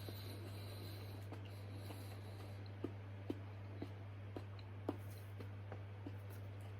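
A person chewing a hot chili pepper: faint, irregular mouth clicks about half a second apart over a steady low hum.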